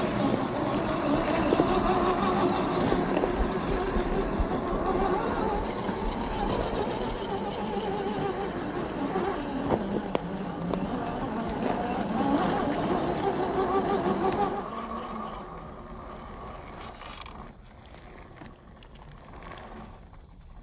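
RC crawler's 540-size 27-turn brushed electric motor and geared drivetrain whining as it drives, the pitch wavering up and down with the throttle. About two-thirds of the way through it drops away to a much quieter, sparser sound.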